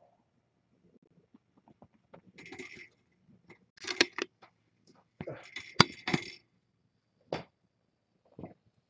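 Playing kittens set off metallic rattling and clinks in a few short bursts, the loudest about four and six seconds in, then two single clicks near the end.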